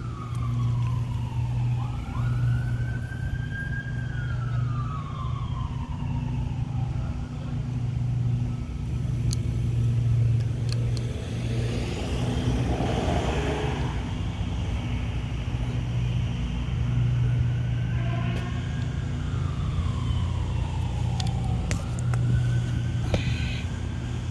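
A siren wailing, its pitch rising and falling slowly over and over, above a steady low engine hum. A short burst of hissing comes about halfway through.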